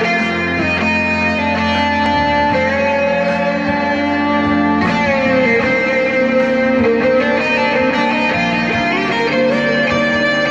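Les Paul-style electric guitar playing a soul lead line, with notes bent up and down, over a backing track with sustained low notes.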